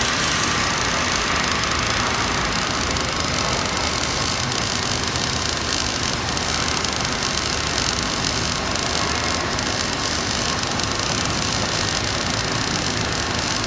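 Gas metal arc (MIG) welding arc running steadily, a continuous crackling hiss.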